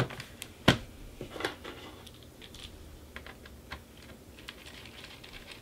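Small clicks and ticks of a screwdriver and fingers working the hard-drive bay screw in the plastic underside of a Lenovo X220 laptop, with one sharp click early on and scattered lighter ticks after.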